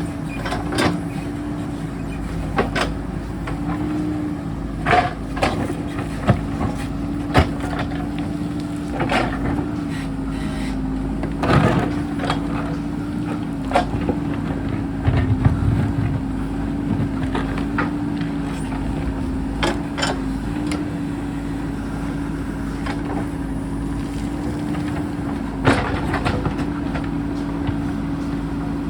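JCB backhoe loader's diesel engine running steadily under load, its pitch wavering slightly. Scattered sharp knocks and clatter sound over it as the machine digs in rock.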